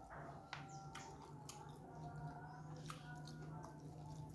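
Eating by hand: scattered soft, wet clicks and squishes from chewing and from fingers working rice and sambal on a plate, over a low steady hum.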